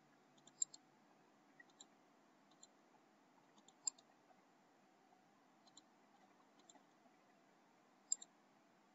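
Faint computer mouse button clicks, single and in quick double pairs, scattered over quiet room tone; the sharpest come about half a second, four and eight seconds in.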